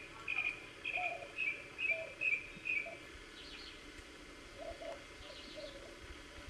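A bird calling: a run of short, repeated chirps, about two a second, that stops about halfway through, followed by a few fainter, higher notes.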